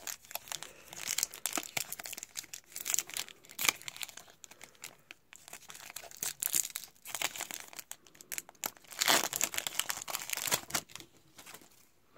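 Foil wrapper of a Topps trading-card pack crinkling and tearing as it is opened by hand, in a run of irregular crackles, loudest about nine seconds in.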